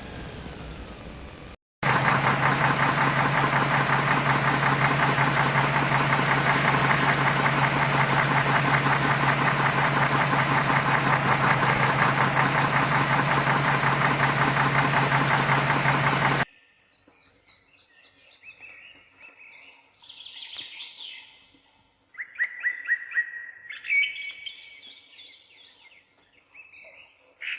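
A small motor running at a steady pitch with a fast, even buzz for about fifteen seconds, then cutting off suddenly. After it, birds chirp against a quiet background.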